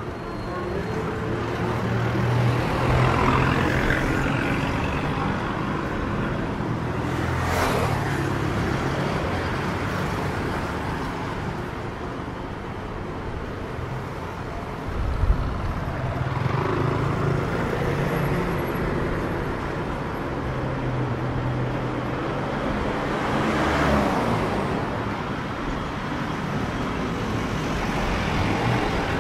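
Road traffic: engines running steadily with several vehicles passing close by, one after another, and a short knock about halfway through.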